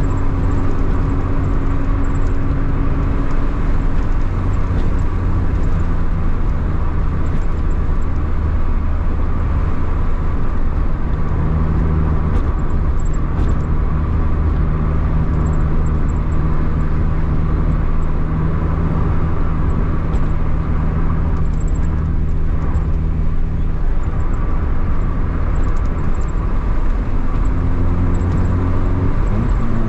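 A vehicle's engine running at steady revs while driving, with road and wind noise. Near the end the engine note rises as it accelerates.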